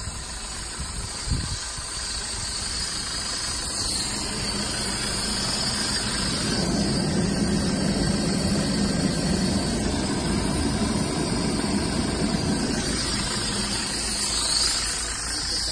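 Maruti Suzuki Swift's engine idling steadily during an HHO engine carbon clean, with a steady hiss over it. The hum grows fuller through the middle, and there is a single short knock about a second in.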